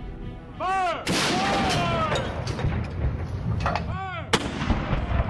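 Field gun firing twice, about three seconds apart, each shot sudden and followed by a long ringing tail.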